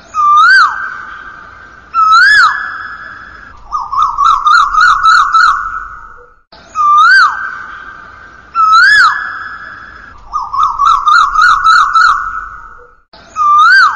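Electronic police siren sound effect looping: a couple of seconds of fast warbling yelp, then two single up-and-down whoops, repeating with an echoing tail after each burst.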